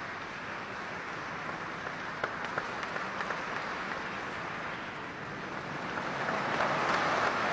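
Audience applauding steadily, with a few single claps standing out about two to three seconds in; the applause swells louder about six seconds in.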